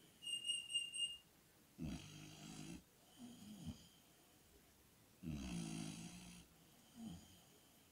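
Dogue de Bordeaux, a flat-faced mastiff breed, snoring in its sleep: two slow breath cycles, each a long rattling snore followed by a shorter one. Near the start there is a brief high whistling tone that pulses three times.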